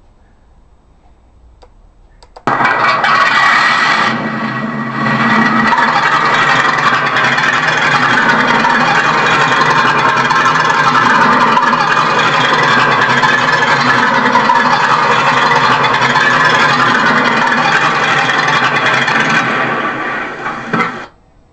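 A 1/6-scale Armortek Panther model tank's sound unit plays a tank engine starting up through its speaker, then running steadily. The sound comes in suddenly, dips briefly a couple of seconds after it starts, and cuts off abruptly near the end.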